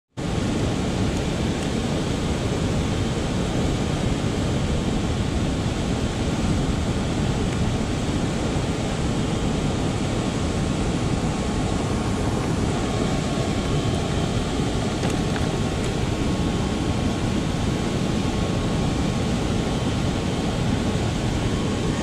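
Steady rush of fast river water from a spillway waterfall and rapids, an unbroken noise with no pauses.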